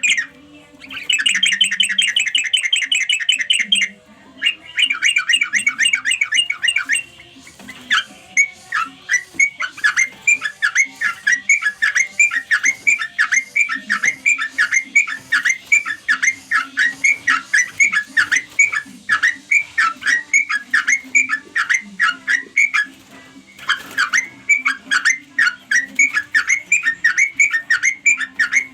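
Yellow-vented bulbul (cucak trucuk) calling, the companion-calling sound used to lure other bulbuls: fast chattering trills for the first several seconds, broken by short gaps, then a long run of short, evenly repeated chirps at about three or four a second. A faint steady low hum runs underneath.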